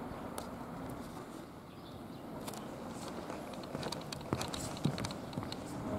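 Steady outdoor background noise, then footsteps on the wooden boards of a pedestrian railway crossing, a scatter of light knocks from about three and a half seconds in.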